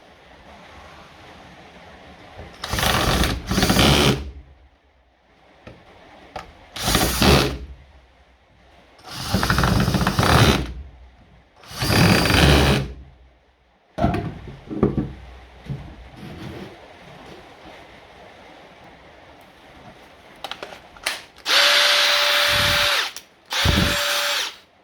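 Cordless power tool, a drill, running on the revived Milwaukee M18 lithium battery in about six short bursts of a second or so each, with a few clicks between; the last two bursts carry a steady motor whine. The battery powering the tool shows the jump-start recovery worked.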